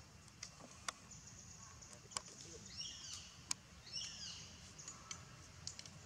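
Faint outdoor ambience with a high hiss that comes and goes, a few sharp clicks, and two short high calls falling in pitch about a second apart near the middle.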